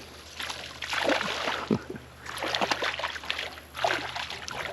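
Water splashing and sloshing against a small boat in three irregular bursts.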